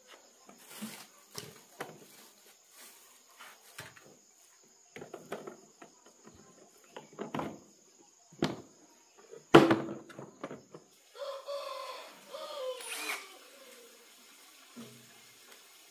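Scattered knocks and clatters of tools and parts being handled while working on a banana chopper's electric motor, the loudest a sharp knock about nine and a half seconds in. A couple of seconds later comes a pitched, wavering sound lasting about two seconds that falls in pitch.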